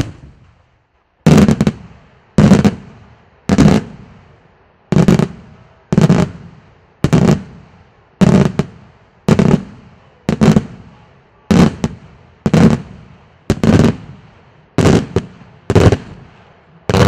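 Daytime fireworks: aerial shells bursting in a steady string, about one loud bang a second, each followed by a rolling echo that dies away before the next.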